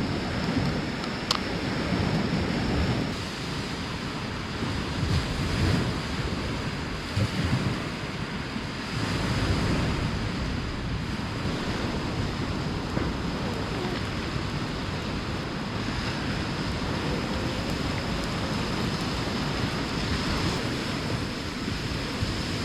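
A steady rushing outdoor noise with gusty low rumbles that swell and ease, like wind buffeting the microphone or surf washing.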